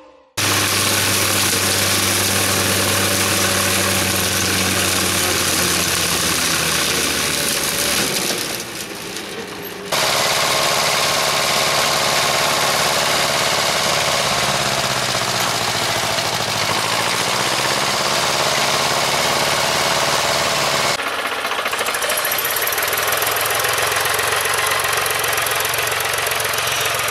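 Farm tractor diesel engines running under load on a silage clamp, in several clips one after another. The engine speed rises and falls in the middle, and the sound is briefly quieter around the ninth second.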